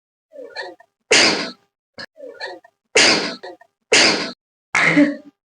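A woman sneezing four times in quick succession. The first two sneezes each start with a short catching breath before the blast. The sneezes were brought on by tickling the nose with a thread-wrapped stick.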